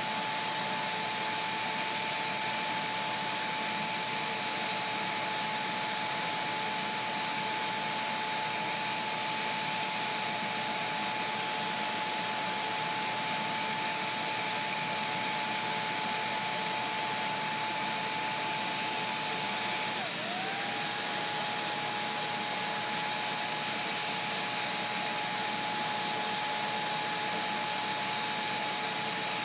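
Electric heat gun running steadily, blowing hot air onto plastic to soften it: a strong airy hiss with a steady fan whine that dips briefly about twenty seconds in and comes back.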